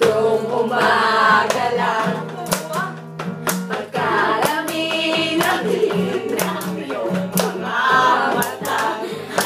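Several young women singing a song together to a strummed acoustic guitar, with a held low vocal line underneath and sharp hand claps and beats throughout.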